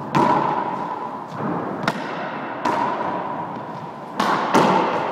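A ball struck back and forth with tennis rackets in an enclosed squash court: about six sharp hits off the strings, walls and floor, each ringing on in the court's echo.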